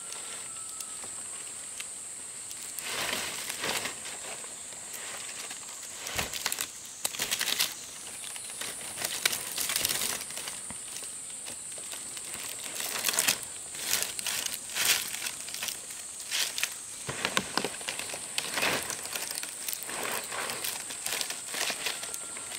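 Green palm leaves rustling and crinkling as they are handled and laid over a bamboo roof frame as thatch, in irregular bursts of crackling. A steady high-pitched whine runs behind.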